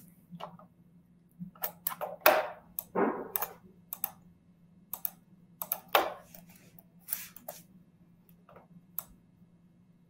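Computer keyboard being typed on in short irregular clusters of keystrokes and clicks, with a faint steady low hum underneath.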